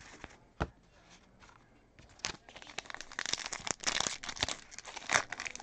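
A sealed trading-card pack wrapper being torn open and crinkled in the hands, a dense crackling rustle that starts about two seconds in, after a single sharp tap of cards being handled.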